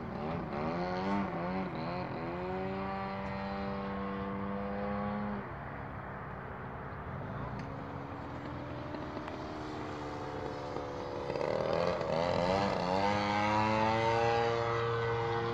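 Radio-controlled aerobatic model airplane's engine and propeller in flight, the note sliding up and down with throttle and passes. It holds a steady pitch, drops and quietens about five seconds in, then climbs and gets louder near the end.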